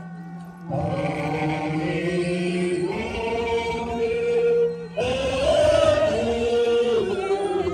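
A group of voices singing a chant-like Tibetan song in long phrases over a steady low drone. A new phrase starts about a second in and another about five seconds in.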